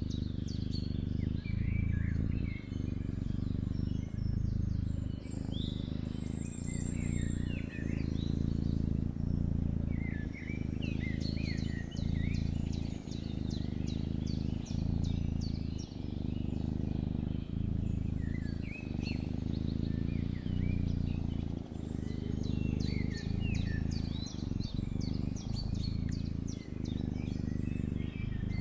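Small birds chirping and twittering on and off over a loud, low, steady hum that breaks briefly every second or two.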